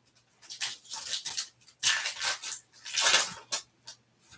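Foil wrapper of a Topps Stadium Club Chrome card pack crinkling and tearing as it is opened by hand, in a series of short rustling bursts.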